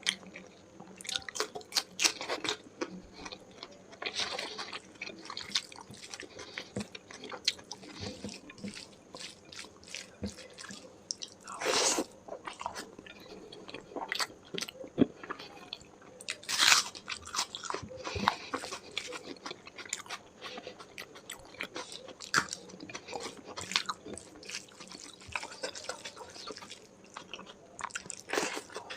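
Close-miked mouth sounds of a person eating chicken curry with rice, raw onion and chili: irregular wet chewing clicks and bites, with two louder crunches about 12 and 17 seconds in.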